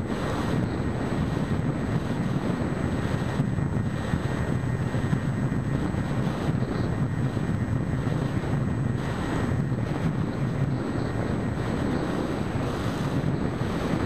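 Wind rushing over an onboard camera's microphone, mixed with the steady drone of an EasyStar 2 RC plane's 1400kv electric motor and 7x6 pusher propeller in level cruise.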